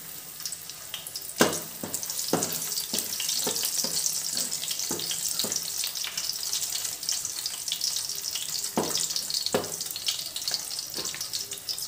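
Garlic cloves sizzling in hot ghee and oil in a metal pan for a dal tempering, a steady high hiss. A spoon stirring them knocks and scrapes against the pan now and then.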